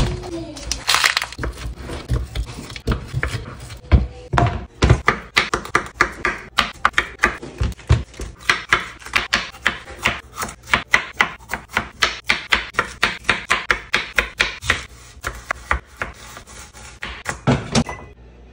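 Kitchen knife slicing bell pepper on a plastic cutting board: a long run of quick, even chopping strokes at about four a second, with scattered knocks and rustles of handling before it and a couple of thumps near the end.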